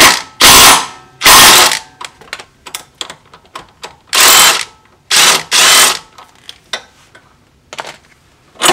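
Cordless electric ratchet spinning an 18 mm bolt out of the upper control arm mount in about five short bursts, each around half a second long. Metal tools click against each other between the bursts.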